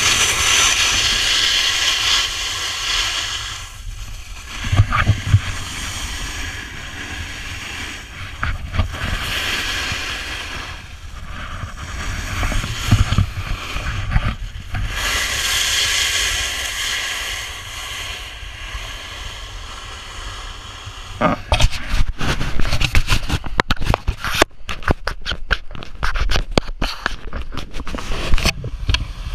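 Snowboard sliding and carving down firm snow: a scraping hiss that swells and fades with each turn, with wind on the microphone. For the last several seconds, rapid irregular knocking and rustling as the pole-mounted action camera is handled.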